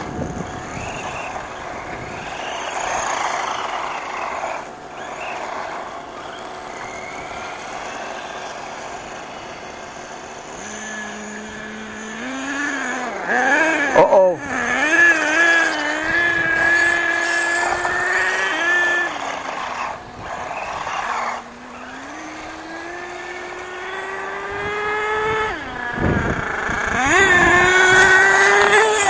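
Small nitro RC car engine buzzing, faint at first, then closer and louder from about ten seconds in, its pitch swinging up and down as the throttle is worked; loudest near the end.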